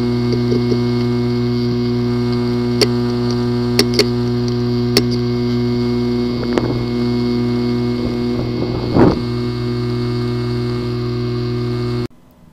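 A failing hard drive: a steady hum broken by sharp, irregular clicks and a louder knock about nine seconds in, the clicking typical of a physically damaged disk assembly. It cuts off suddenly near the end.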